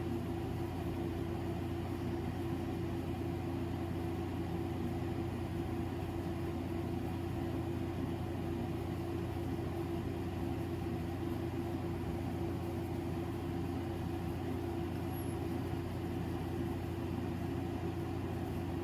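Electric fan running with a steady, even hum.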